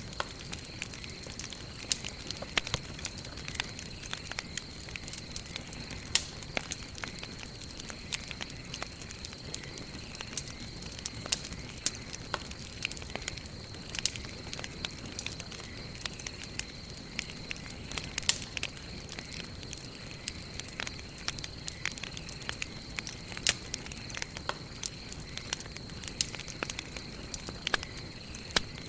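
Campfire of burning wood crackling, with irregular sharp pops over a soft steady hiss. A faint steady high-pitched tone runs underneath.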